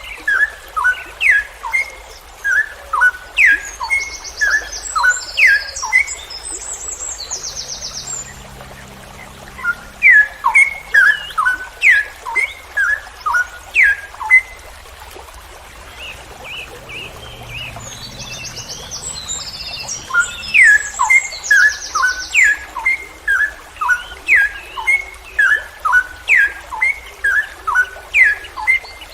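Straw-headed bulbul (cucak rowo) singing a long run of loud, sweeping whistled notes, about one to two a second, with two short breaks. A higher, fast chattering run comes in about five seconds in and again near two-thirds of the way through.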